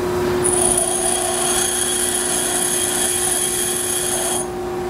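Pedestal grinder wheel grinding a high-speed steel tool bit: a steady high-pitched grinding that starts about half a second in and stops near the end, over the constant hum of the grinder running. The bit is being ground straight in to put the side relief on it.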